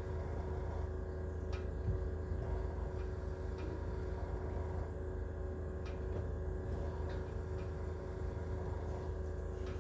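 Steady low hum with one faint steady tone in the cabin of a Jaguar I-Pace, the car where the brake pedal squeaks, with a few faint clicks scattered through it.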